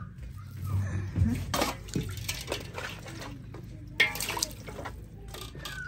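Water splashing and dripping in a metal pot as pieces of dried, salted fish are lifted out and dropped back in by hand, in irregular splashes with the loudest about four seconds in.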